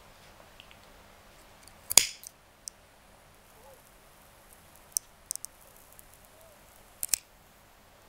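Sharp clicks from a cigarette sound effect. The loudest comes about two seconds in, with a brief rasp after it; smaller clicks follow around the middle, and a quick double click comes near the end.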